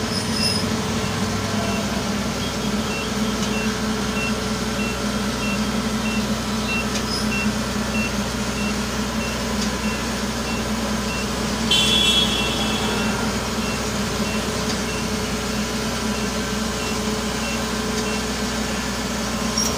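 Kubota DC68G Harvesking combine harvester's diesel engine running steadily as the machine moves on its tracks. A beeper sounds about twice a second for several seconds, as a reversing alarm does, and a brief, louder high-pitched sound comes about twelve seconds in.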